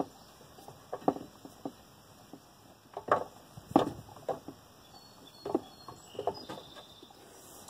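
Irregular clicks and knocks of hand tools and parts being handled during mechanical work, a few a second, with the loudest knocks about three to four seconds in.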